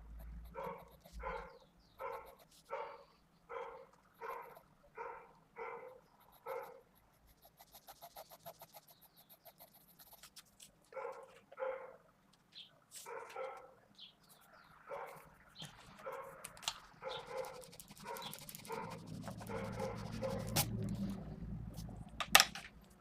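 A dog barking in a steady run of about two barks a second, then after a short pause barking more irregularly. A sharp click comes near the end.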